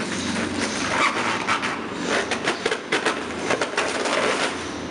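Inflated clear plastic bags crinkling and crackling as they are squeezed and handled, in an irregular run of sharp crackles, densest from about a second in until near the end.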